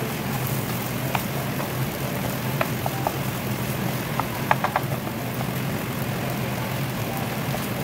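Scrambled egg, stink beans and chilli frying in a non-stick pan while a spatula stirs it: a steady sizzle over a low hum, with a few sharp clicks of the spatula against the pan, several in quick succession about four and a half seconds in.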